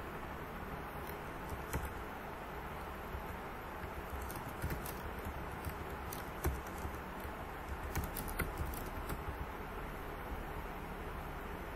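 Computer keyboard keystrokes clicking in short runs of typing, with a few scattered single clicks, over a steady background hiss.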